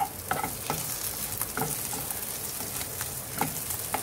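Bitter gourd strips frying in coconut oil over a low flame, sizzling steadily, while a spatula stirs and scrapes through them in repeated strokes.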